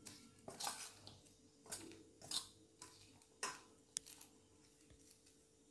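Hand mixing sliced bitter gourd with a dry spice-and-flour coating in a stainless steel bowl: faint, uneven rustling strokes, about four of them, with one sharp tick a little after the last.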